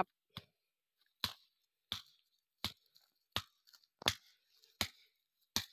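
A series of short, sharp clicks or knocks, evenly spaced at about three every two seconds, with near silence between them.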